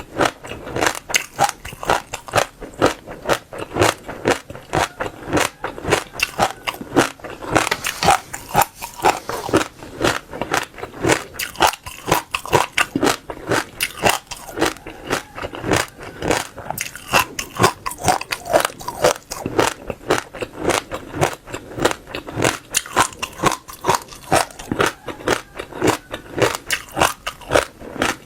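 Crisp seeds being bitten and crunched between the teeth, close to the microphone, in a steady run of sharp crackly crunches several times a second.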